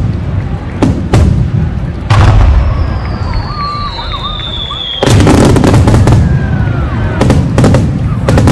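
Aerial fireworks shells bursting with loud bangs, a big one about two seconds in, and a long high whistle falling slowly in pitch through the middle. About halfway through, a dense run of rapid crackling bangs sets in.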